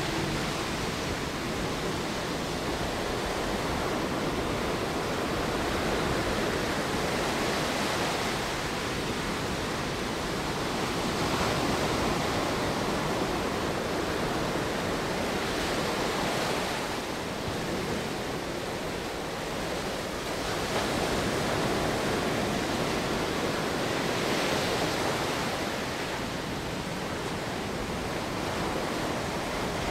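Sea surf: a steady rush of waves that swells and eases every few seconds.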